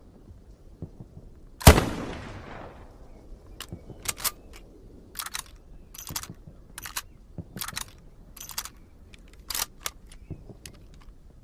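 A single loud shot from an M1903 Springfield bolt-action rifle about two seconds in, echoing away over about a second. It is followed by a run of about a dozen short, sharp clicks: the bolt being worked and the rifle handled.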